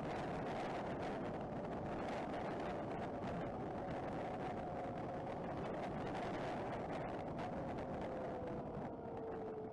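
Denzel Rush 4 electric dirt bike at road speed: a steady rush of wind and road noise on the handlebar camera, with a faint electric motor whine that slowly falls in pitch as the bike slows.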